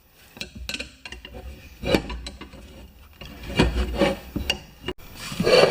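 Workshop handling noise: scattered clicks and knocks with rubbing and scraping, and low thuds about two seconds in and again around four seconds.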